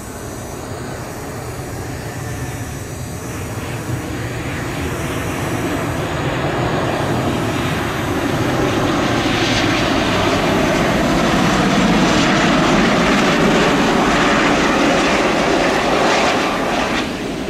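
Boeing 737-800 airliner's jet engines on final approach and landing flare: a steady rumble and whine that grows louder as the plane nears, loudest in the last few seconds, then falls off suddenly near the end.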